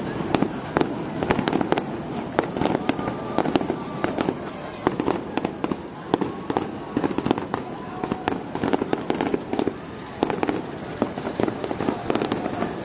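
Aerial fireworks bursting in a rapid, continuous string of sharp bangs and crackles, several a second.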